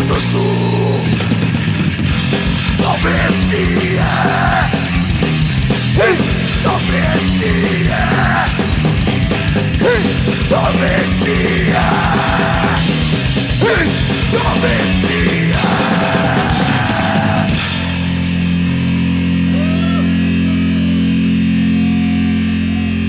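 Live rock band playing a loud instrumental passage with electric guitars, bass and drums. About 18 s in the drums stop and a held chord is left ringing.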